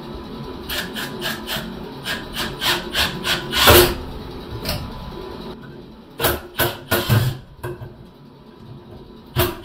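Hand scraping and rasping strokes, a tool worked back and forth against wood or pipe inside the wall cavity: a quick run of short strokes, about three a second, the loudest about four seconds in, then a pause and a second run of strokes.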